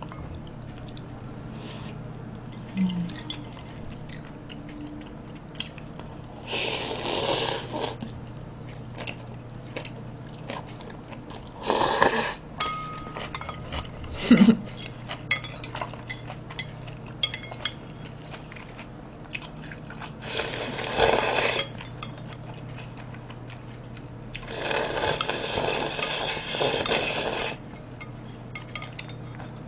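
Close-up eating sounds of cold naengmyeon: chopsticks clicking against the bowls, and four loud slurps of noodles and broth, the longest about three seconds near the end as the bowl is drunk from.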